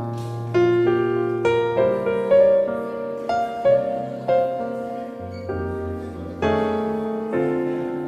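Background piano music: a slow melody of single notes, each struck and then fading, over low held bass notes.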